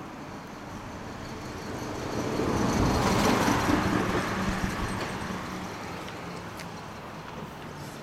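A road vehicle passing by: its noise swells over a couple of seconds, peaks about three to four seconds in, then fades away.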